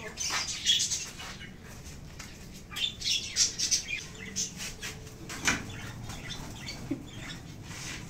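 Pet doves fluttering their wings in their cage in several short bursts as feed is put in.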